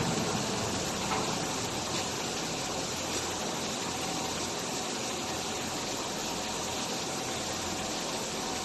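Automatic PE film fabric packing machine running: a steady hiss of machinery with a few faint clicks.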